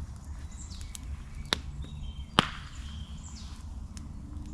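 Two sharp cracks of dry wood being handled, the second louder, a little under a second apart. Birds chirp faintly in the background.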